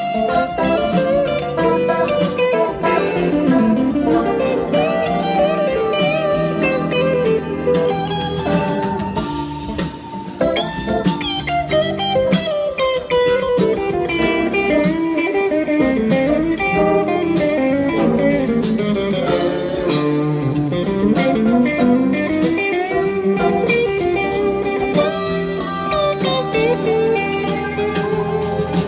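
Blues-style music led by guitar, its melody line sliding up and down in pitch over sustained lower notes.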